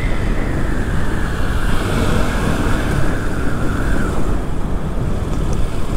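Steady riding noise from a KTM RC 200 motorcycle on the move: wind rushing over the microphone with the engine and tyres running underneath at an even speed.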